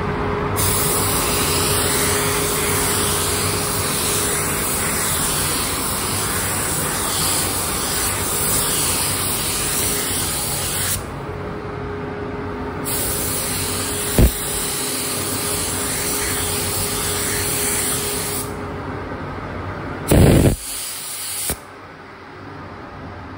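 Spray gun hissing as it lays clear coat in long passes, with a pause of about two seconds midway and a short final burst, over a steady background hum. A sharp click comes midway, and a loud thump near the end.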